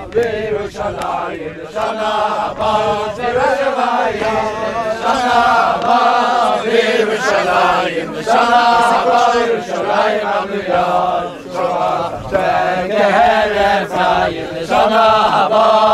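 Chant-like singing: voices holding and sliding between sustained notes, in phrases a second or two long with short breaks between them.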